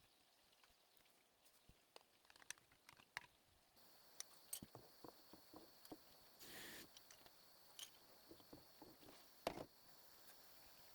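Near silence with faint scattered taps and clicks, a short soft hiss in the middle and a sharper click near the end.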